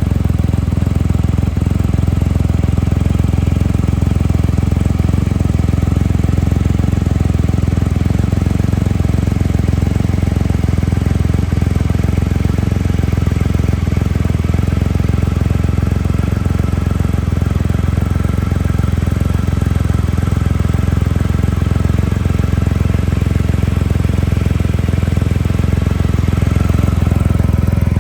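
Triumph Rocket III's inline three-cylinder engine idling steadily, a deep, even exhaust note with no revs.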